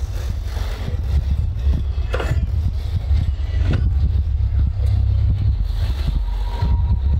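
Steady low rumble of a running motor vehicle, engine and road noise, with a few faint knocks and a short faint beep near the end.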